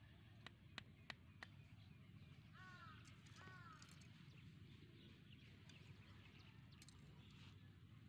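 Four faint taps of a small hammer driving a thin bamboo stake into dirt, about a third of a second apart, followed by a bird calling twice, two short arched calls.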